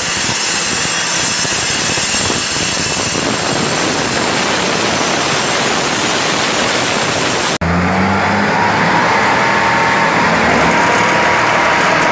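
Construction machinery: a loud, steady hiss-like machine noise. About two-thirds of the way in it cuts off abruptly to an engine running at a steady pitch.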